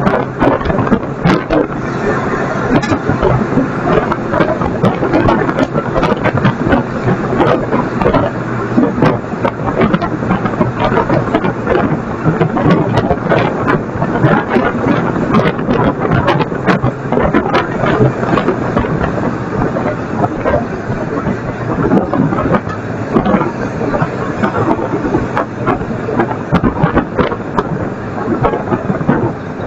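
Garbage truck running with a steady low engine hum under continuous dense clattering and crackling as yard waste is collected.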